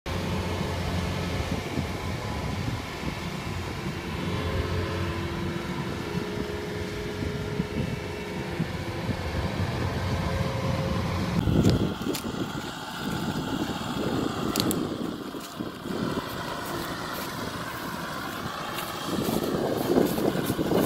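Engine of a tracked rice combine harvester running steadily. About halfway through it gives way to a farm tractor's engine running, with wind buffeting the microphone and getting louder near the end.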